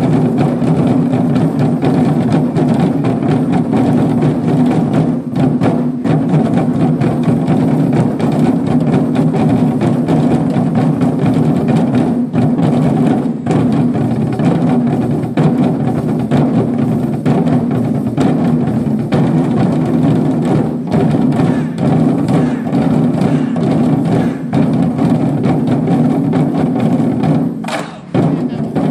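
A corps of Chinese war drums (large red barrel drums) struck together in a loud, dense, continuous beat, breaking off for a moment about a second before the end.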